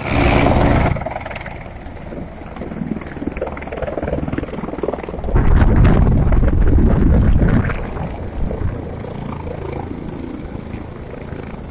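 Helicopter rotor and turbine noise as a helicopter comes in low over a helipad to land. A heavier, louder rumble swells for a couple of seconds about five seconds in, then eases to a steadier, lower level.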